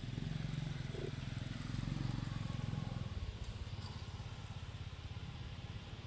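A vehicle engine rumbling in the background, louder for the first three seconds and then fading.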